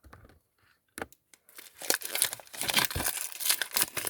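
Wrapper of an Upper Deck Series 2 hockey card retail pack crinkling and tearing as it is pulled open by hand. After a near-quiet start with a few light clicks, the dense crackle begins about two seconds in.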